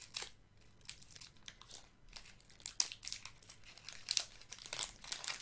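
Pokémon card booster pack being torn open and crinkled by hand, its foil wrapper giving an irregular run of sharp crackles.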